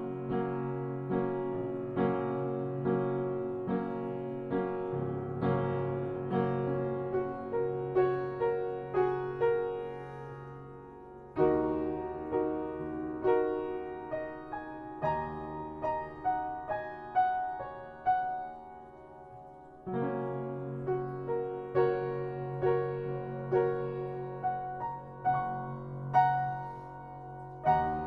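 Slow, gentle piano music: single struck notes over held low chords, with a fresh phrase starting about 11 and again about 20 seconds in.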